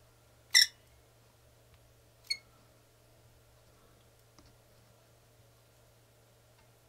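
Caulking gun clicking as its trigger is squeezed to push chinking into the gaps between logs. There are two sharp metallic clicks about two seconds apart, the first the loudest, and a faint tick later, over a quiet room.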